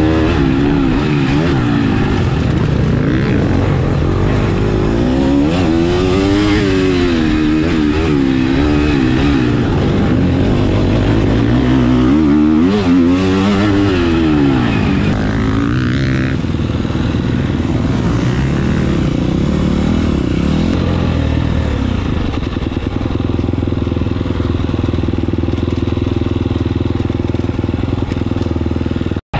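KTM 250 SX-F four-stroke single-cylinder motocross engine heard on board while the bike is ridden round a dirt track, its revs rising and falling again and again. From about two-thirds of the way in it runs at steadier, lower revs.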